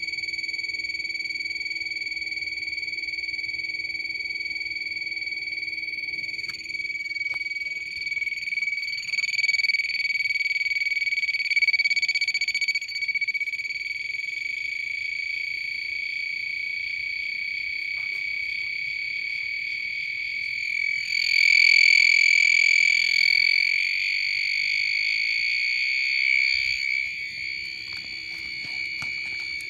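Small beeper driven by a 555 timer oscillator, sounding a steady high-pitched tone with an overtone above it: the test frequency being fed into the coil. The tone swells louder twice, about ten seconds in and again about twenty-one seconds in.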